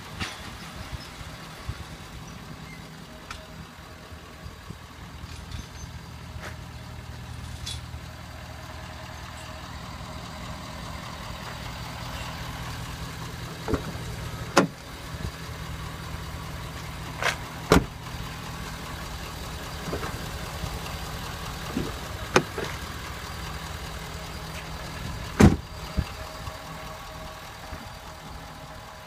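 Ford F-250 Super Duty pickup engine idling steadily, with several sharp clunks in the second half as a door is opened and shut.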